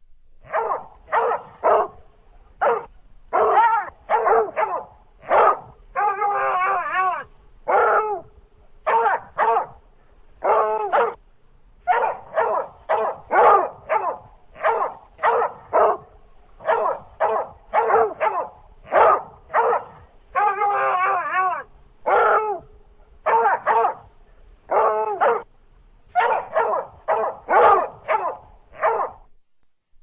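A dog barking over and over, mostly in quick pairs and threes, with a couple of longer drawn-out calls about six seconds in and again about twenty-one seconds in.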